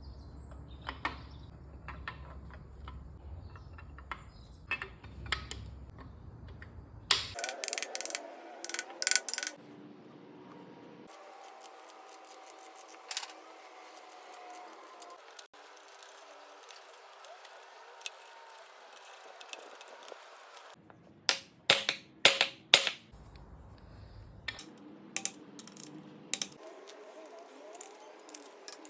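Metal parts and hand tools clinking and clattering during engine work, with two quick clusters of sharp metallic clanks, about a third of the way in and again about three quarters in, over a low workshop hum.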